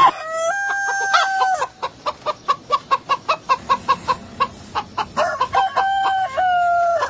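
Rooster crowing twice, each crow a long held call, with a fast run of short clucks, about five a second, between the crows.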